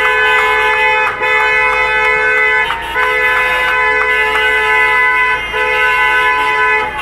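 Car horn honking in long held blasts of about one to two and a half seconds, with short breaks between them.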